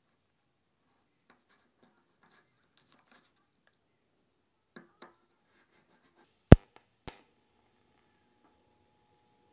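Light scratching and rustling of tape being worked onto a fitting, a few small clicks, then a loud sharp crack about six and a half seconds in. After that a TIG welding arc on the steel fuel tank burns with a faint steady hum and a thin high whine.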